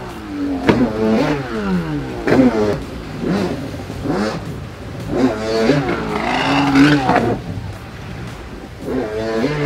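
Stand-up freestyle jet ski engine revving hard and falling back again and again, its pitch swinging up and down every second or so as the throttle is worked through carves and jumps, over the rush of water spray.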